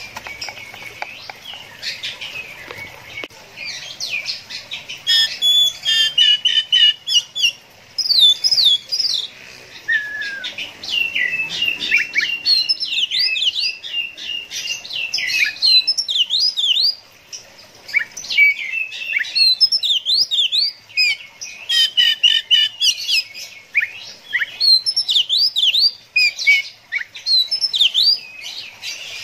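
Caged Oriental magpie-robin singing a long, varied song of rapid whistled sweeps and trills, broken by short pauses a little over halfway through and again a few seconds later.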